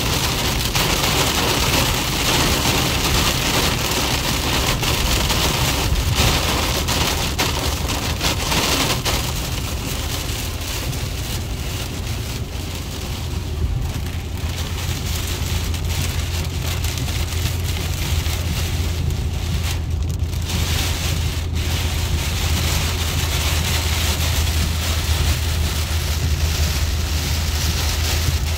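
Heavy rain beating on a car's roof and windshield, heard from inside the cabin over a steady low road rumble. The rain lets up a little about ten seconds in, then picks up again.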